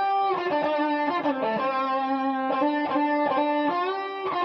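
Guitar playing a blues lick in D: a run of single picked notes stepping through the minor pentatonic, with a note held for about a second in the middle and small string bends sliding the pitch.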